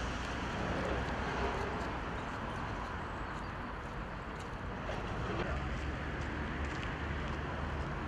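Steady outdoor noise with a low rumble underneath, with no distinct events.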